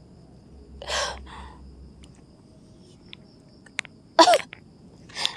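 A woman's forceful breathing: a hissing exhale about a second in, then a loud, voiced, cough-like gasp a little after four seconds and another short breath near the end, with a few sharp clicks between.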